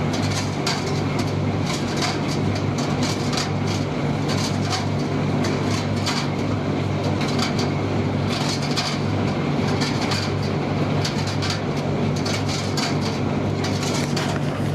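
Commercial gas tumble dryer running: a steady motor and fan hum with irregular clicking and knocking as the load tumbles in the drum.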